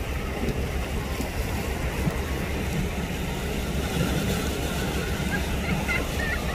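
Steady low drone of a boat's engine with wind buffeting the microphone.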